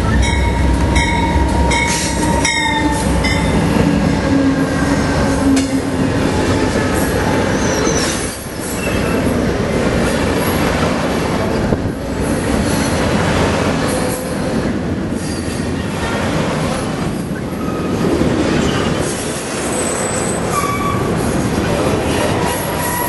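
Amtrak passenger train arriving along a station platform: the locomotive approaches, then the cars roll past close by with a steady rumble of wheels on rail and intermittent high wheel squeal.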